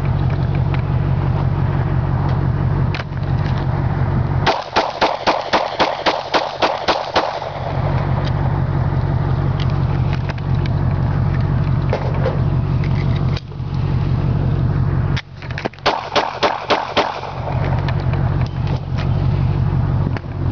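Two quick strings of rapid-fire shots from a Glock 23 pistol in .40 S&W, roughly four shots a second: the first about four seconds in, the second near the end. Between and behind them a steady low engine hum.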